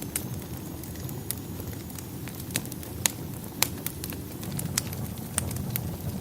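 Wood fire crackling in a fireplace: a steady low rumble of burning with sharp pops and snaps at irregular moments, about one every second or so, the loudest about three seconds in.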